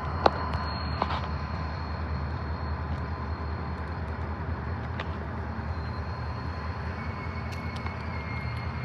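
Union Pacific train rumbling steadily on the rails, with a sharp click about a quarter second in and a smaller one about a second in.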